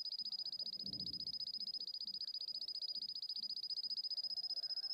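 Canary singing a long, rapid trill: one high note repeated many times a second without a break.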